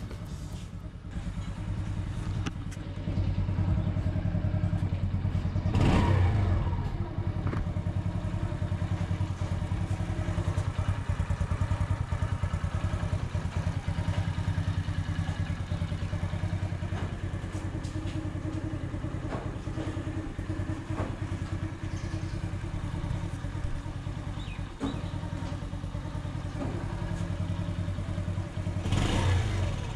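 Runner Kite Plus motorcycle's single-cylinder four-stroke engine running at idle to warm up. It revs up briefly about six seconds in and again near the end.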